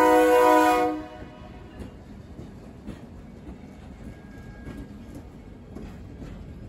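A freight locomotive's multi-note air horn sounds a loud chord that cuts off about a second in. Then the train's cars roll past with a low rumble and scattered wheel clicks and clanks.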